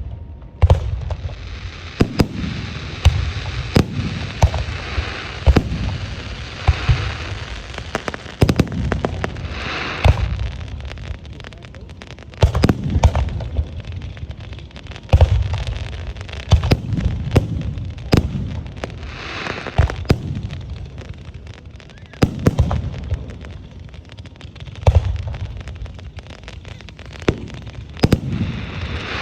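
Aerial firework shells bursting one after another, a sharp bang every second or two, each followed by a low rolling rumble, with a hissing crackle between bursts.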